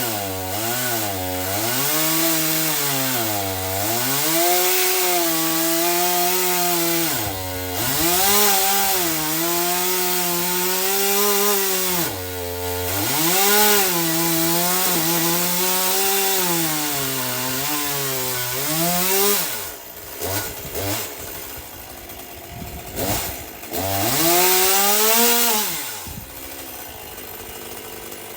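Stihl MS 201 C-M two-stroke chainsaw cutting through a large Douglas fir round, its engine note dipping under load in the wood and picking back up again and again. About two-thirds of the way in it comes out of the cut, gives a couple of short revs, and drops to idle near the end.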